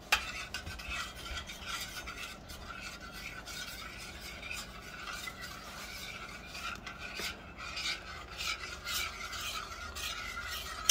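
Metal spoon stirring a thickening gelatin mixture in a stainless steel saucepan, scraping and tapping against the pan's bottom and sides in quick, irregular strokes.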